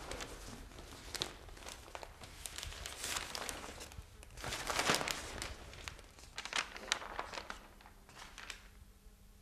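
Newspaper pages rustling and crinkling as they are handled and turned, in several irregular swishes, the loudest about three and five seconds in.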